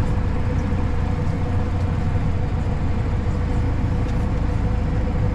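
Tractor engine running steadily while the tractor reverses slowly, heard from inside the cab: a constant low drone with a faint steady whine above it.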